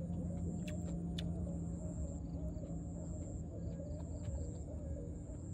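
Outdoor ambience: a steady high-pitched insect drone over a low, even hum, with a few short sharp clicks.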